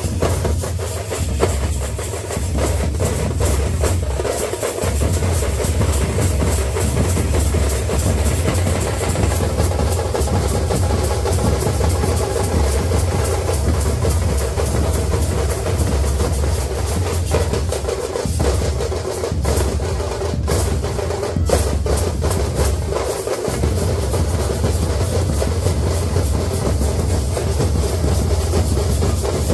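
A group of festival drums playing a loud, fast, continuous rhythm of dense strikes over a heavy low boom.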